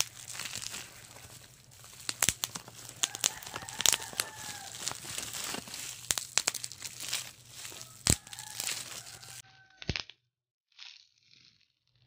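Clear plastic packaging wrapper crumpled and crinkled by hand: a dense run of crackles and sharp snaps. About nine and a half seconds in it breaks off, leaving a few short, softer rustles.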